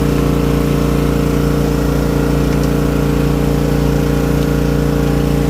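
Portable air compressor running steadily with an unchanging motor drone.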